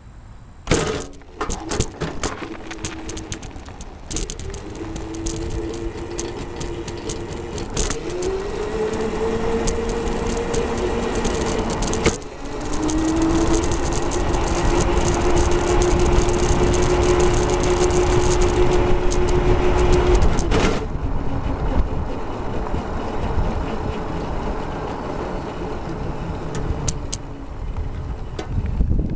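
Electric go-kart running down a paved street: the drive motor whines over a steady rumble of tyres and wind. The whine rises in pitch about eight seconds in, breaks off at about twelve seconds, comes back and holds steady, then cuts off suddenly about twenty-one seconds in, leaving only the tyre and wind rumble.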